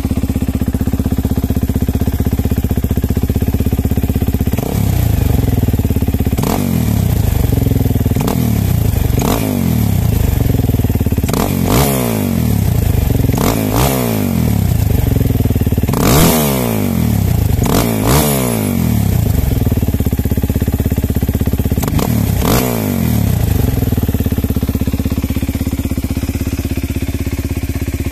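Suzuki DR-Z400E single-cylinder four-stroke engine breathing through an aftermarket Rino Racing full exhaust. It idles steadily, is revved in about ten quick throttle blips that each rise sharply and fall back, then settles back to idle near the end.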